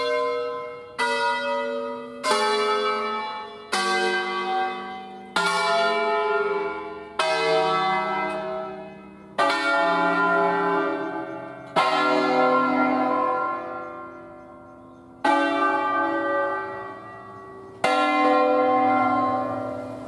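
Church bells from an eight-bell concerto in C cast by Luigi Cavadini, rung by hand with the bells swinging on their wheels. About ten single strokes come one after another, each a different bell ringing out and dying away. The strokes follow at about one a second at first, and the gaps widen to two or three seconds.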